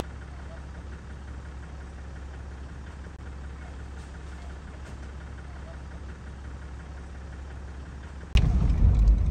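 A vehicle engine running steadily: a low drone. About eight seconds in it suddenly turns into a much louder low rumble.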